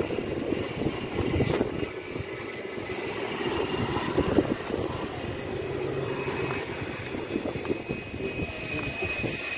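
Street traffic: cars and vans driving past close by, a steady mix of engine hum and tyre noise that rises and falls as they pass.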